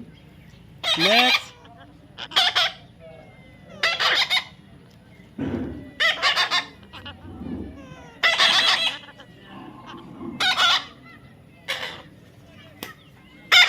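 Young parrot giving short, harsh calls, one every one to two seconds, about nine in all.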